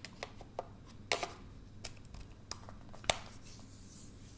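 Scattered light clicks and taps from handling an LG G5 smartphone and its detached bottom battery module, about eight in all, the sharpest one about three seconds in.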